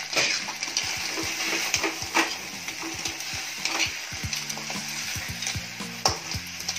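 Masala-coated crab pieces sizzling in hot oil in a steel kadai while a spatula stirs and tosses them, scraping and knocking against the pan at irregular moments: the dry-roasting stage of a crab fry.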